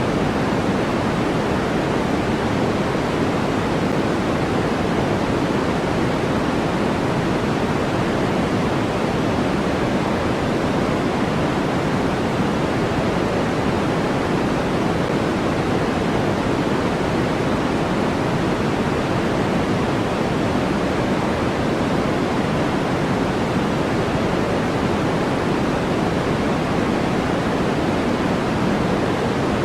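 Steady electronic white noise for sleep: an even, unchanging hiss, fuller in the lower tones than a bright hiss, with no events or changes.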